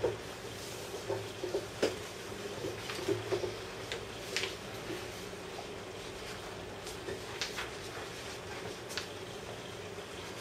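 Quiet room tone with a steady hum and a few short, faint clicks and knocks spread through it, the loudest about two seconds in.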